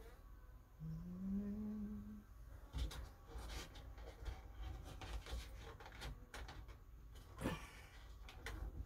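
Faint knocks, taps and scraping of a wooden shelf board being shifted and pressed against its metal shelf brackets, with a short low rising hum about a second in and a sharper knock near the end.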